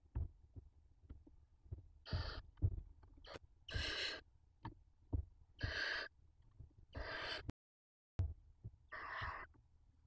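Barn owl nestlings giving their hissing begging calls, a series of about five harsh hisses, each about half a second long and one to two seconds apart, over faint rustling in the nest. The sound cuts out completely for a moment a little past halfway.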